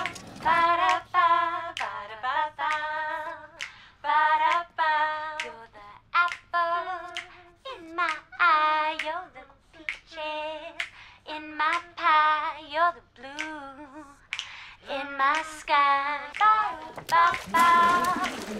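A high voice, likely a woman's, singing a melody alone in short, separate held notes, with no instruments. Near the end a burst of noise comes in over the singing.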